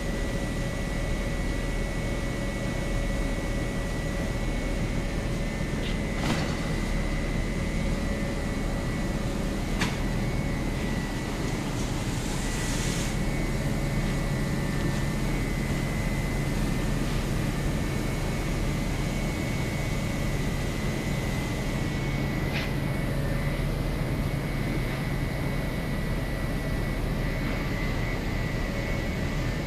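Inclined bag-loading belt conveyor running: a steady motor hum with a high, even whine, broken by three sharp knocks and a brief hiss about halfway through.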